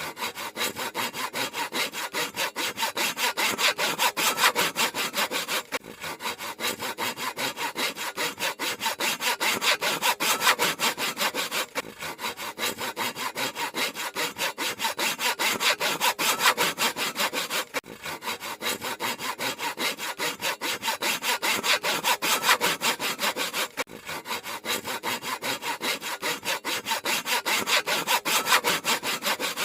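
Handsaw cutting through wood in rapid, even back-and-forth strokes, about three a second, with a brief break every six seconds or so.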